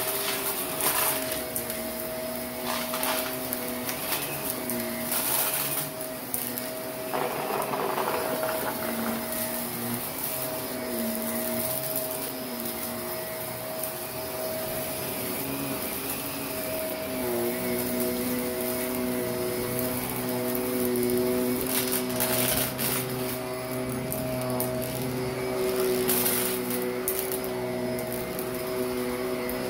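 Shark Navigator upright vacuum running over a carpet rug, its motor humming steadily. Crunchy fine dirt and grit crackles up through the brush roll in scattered bursts, heaviest near the start and again about three quarters of the way through.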